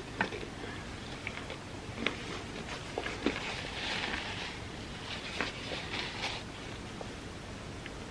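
Close-miked eating: chewing of a soft, sticky dessert of tortilla layered with chocolate and peanut butter, with scattered sharp wet mouth clicks and a short breathy rustle about halfway through.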